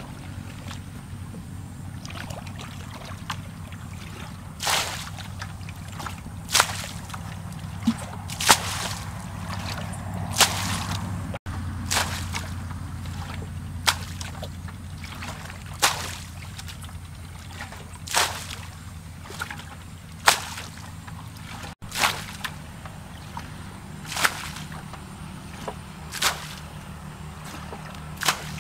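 Water bailed out of a shallow pond with a plastic bucket: a scoop and a splash of thrown water about every two seconds.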